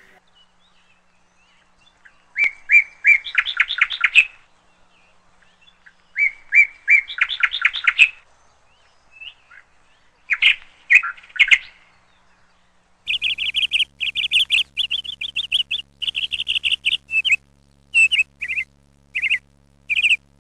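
High bird-like chirping: short phrases of chirps that quicken into a trill, repeating every few seconds. About two-thirds through it turns into a faster, denser run of chirps over a low steady hum.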